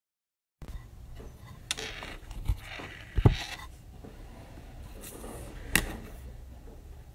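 Handling noise on a phone's microphone: rubbing with three sharp knocks, the loudest about three seconds in. The sound cuts out completely for the first half second.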